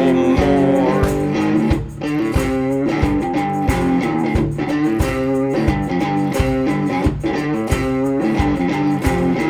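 Instrumental passage of a blues-country song led by a resonator guitar, picked notes ringing over a steady beat of about two strokes a second.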